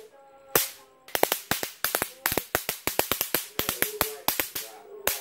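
Electric mosquito-swatter racket crackling: a rapid, irregular run of sharp snaps as sparks jump on its charged mesh, several a second, with a brief lull near the start.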